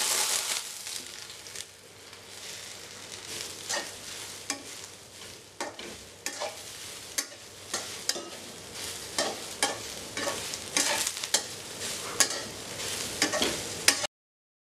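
Soya chunks sizzling as they fry in oil in a kadai, with a spatula scraping and knocking against the pan at irregular intervals. The sizzle is loudest at the start and settles about a second and a half in, and the sound cuts off just before the end.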